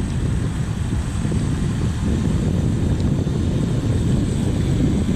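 RC float plane's electric motor and propeller running, a thin steady high whine that fades near the end, under a heavy low rumble of wind on the microphone.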